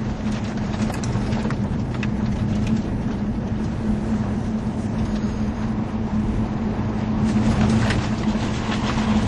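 Vauxhall Monaro's V8 engine running at a steady, even note over tyre and road noise, heard from inside the car's cabin, with a few faint rattles.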